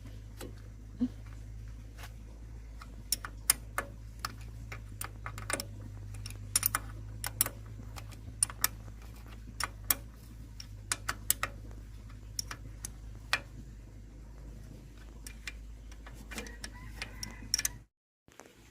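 Irregular sharp metallic clicks and light taps of hand work on small metal parts, over a steady low hum.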